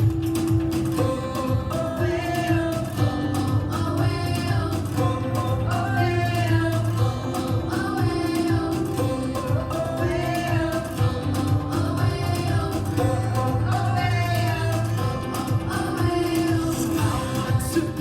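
A worship song: singing over instrumental backing with a steady beat.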